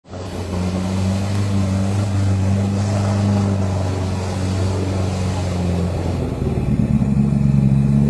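Off-road 4x4 engine running steadily, dropping to a lower pitch about six seconds in as the revs change.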